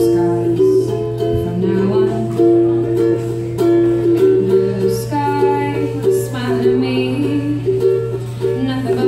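Ukulele strummed and picked with a woman singing along at times, over a steady low hum.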